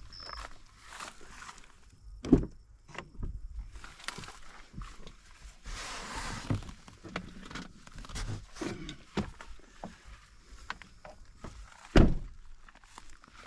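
Rustling and small knocks, with two sharp thumps standing out, one about two seconds in and one near the end.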